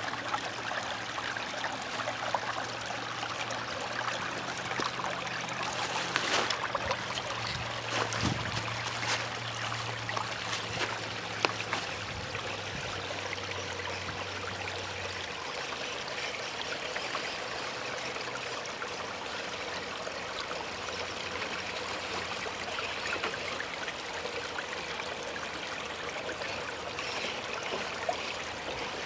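A stream running steadily over rocks, with a few sharp knocks in the first half.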